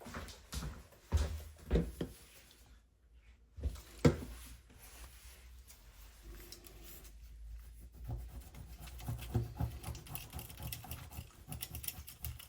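Small hand-tool and handling noises: scattered scrapes and taps, with a sharp knock about four seconds in and quicker small clicks near the end, as leftover battery adhesive is scraped off a phone's frame.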